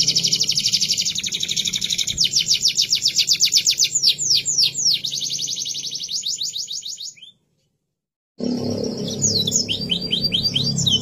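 Domestic canary singing in fast trills and runs of quick sweeping notes, over a low steady background hum. The song breaks off abruptly about seven seconds in, leaving a second of silence, then resumes with more sweeping notes.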